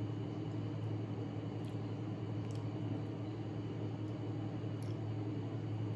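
A steady low hum over room noise, with a few faint short ticks now and then.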